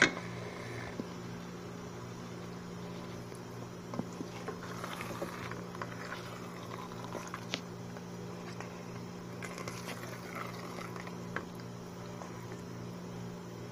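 A wooden spoon stirs chicken pieces into a thick, simmering onion sauce in a pot, making soft squelching and bubbling with a few light knocks. A steady low hum runs underneath.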